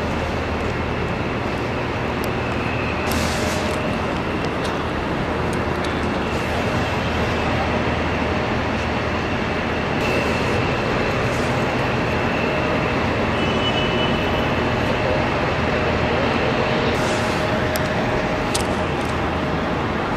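Jet engines running steadily across the airfield: a constant roar with a steady whine running through it, a little louder from about halfway through.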